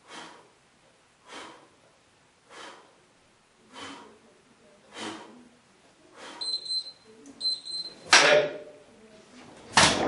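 Breaths pushed out about once every second and a quarter, in time with the reps of a dumbbell bent-over row. Then an interval timer gives two short high beeps, marking the end of the 35-second work period, and two loud knocks follow near the end.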